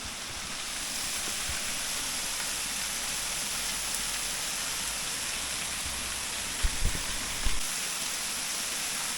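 Bigăr waterfall: a steady, rain-like rush of falling water spraying down, with a few brief low thumps about seven seconds in.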